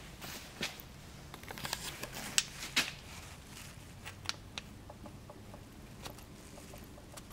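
Irregular small clicks and light metal knocks of steel valve lifters (tappets) being handled and dropped into their bores in a Ford Model Y sidevalve four-cylinder engine block, two sharper knocks a couple of seconds in.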